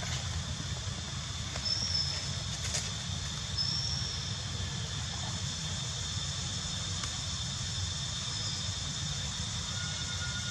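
Steady outdoor forest ambience: a constant high hum over a low rumble, with a few short high chirps, two of them about two seconds apart near the start.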